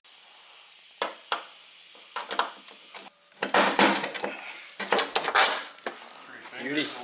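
Metal clinking and rattling as hardware and tools are handled against a snowmobile's aluminium tunnel: a few sharp clicks, then two louder bouts of clattering about halfway through.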